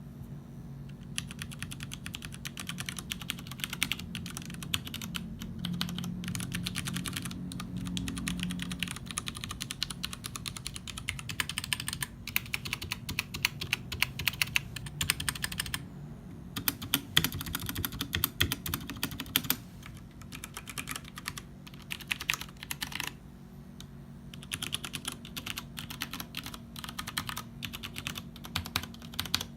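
Typing on a KUL ES-87 tenkeyless mechanical keyboard with Cherry MX Brown tactile switches and GMK Plum keycaps: quick runs of keystroke clacks, with brief pauses about halfway and again about three quarters through.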